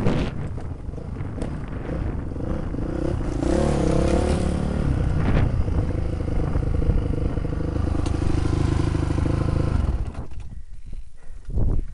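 An engine running steadily, its pitch wavering briefly a few seconds in; the sound drops away about ten seconds in, leaving a few light knocks.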